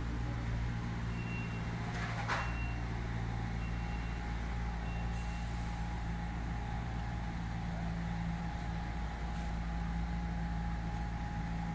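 Maserati GranTurismo's V8 with a Tubi exhaust idling steadily, without revving. About four short high beeps, a second apart, sound over it in the first five seconds.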